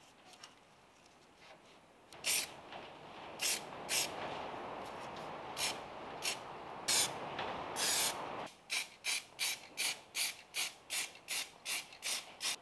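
An aerosol can of copper weld-through primer spraying in one long hiss of about six seconds, starting about two seconds in. Then the can is shaken, its mixing ball rattling about three times a second.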